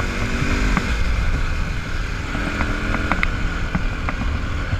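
Dirt bike engine running at modest revs along a rough trail, its pitch shifting a little partway through, with wind rumble on the microphone and a few sharp knocks and rattles from the bike over bumps.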